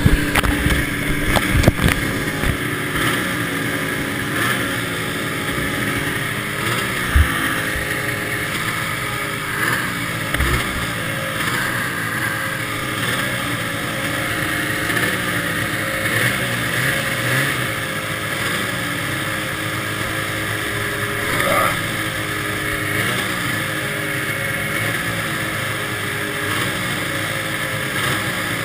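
Several vintage 340 cc fan-cooled two-stroke snowmobile engines, the nearest a Rupp's, idling with the throttles blipped over and over, their pitch rising and falling every second or two.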